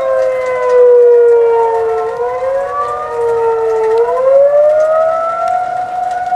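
Outdoor tornado warning sirens sounding a warning, several heard at once with their tones overlapping. Their pitch slides down, dips a second time about two seconds in, then climbs back up about four seconds in.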